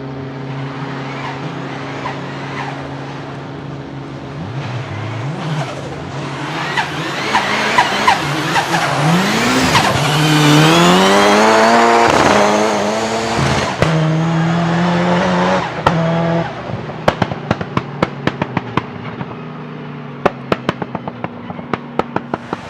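Car engine held at steady revs, then revving up and down as the tyres squeal through a drift. Near the end comes a rapid run of sharp crackles from the engine.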